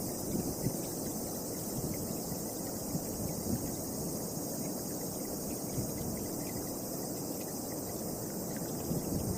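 Wind buffeting the microphone in uneven low gusts, over a steady high-pitched chorus of insects.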